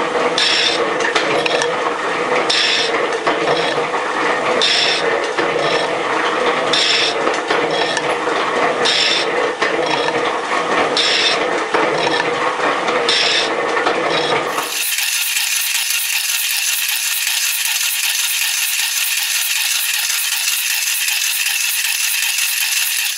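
Metal shaper cutting a cast-iron workpiece: the ram working back and forth with a scraping, rattling stroke about every two seconds. About two-thirds of the way through the sound changes abruptly to a steady, thin mechanical noise with no low end.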